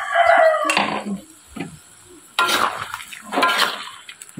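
A rooster's crow ends within the first second. Then a metal ladle scrapes and stirs meat in a metal wok, in two strokes about a second apart.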